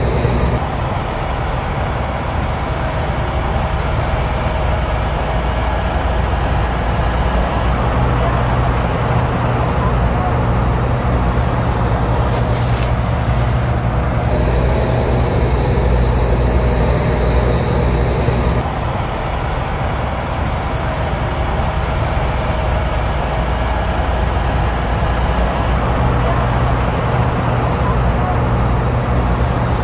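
Heavy diesel engines of hydraulic excavators running steadily under load as they dig and load sand, with a constant low engine hum. The higher hiss shifts abruptly a few times, near 14 and 19 seconds in.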